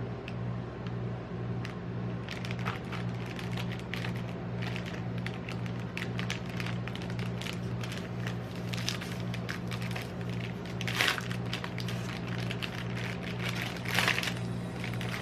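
Metal spatulas tapping, chopping and scraping on a rolled-ice-cream cold plate, a quick run of sharp clicks and scrapes with louder strikes about eleven and fourteen seconds in, over a steady low hum.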